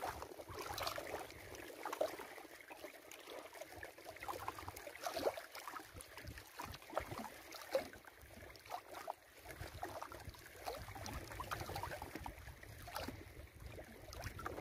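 Lake water lapping in small, irregular slaps and splashes. A low rumble, like wind on the microphone, comes in during the second half.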